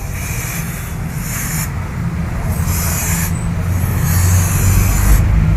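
Aerosol chain lube (Motul MC Care C2) sprayed onto a motorcycle chain in about four short hissing bursts, over a steady low rumble.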